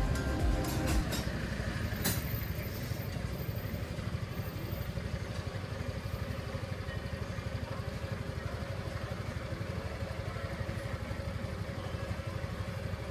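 A small motorcycle engine idling steadily with a fast, even pulse.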